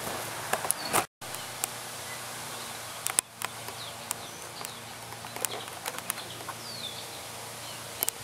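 Woodland ambience: a steady hiss with scattered sharp clicks and a few short, high bird chirps. The sound cuts out completely for a moment about a second in.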